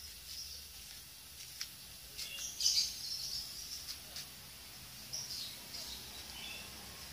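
Birds chirping in short high bursts, loudest a little under three seconds in and again twice near the end, over low background noise, with a few faint clicks.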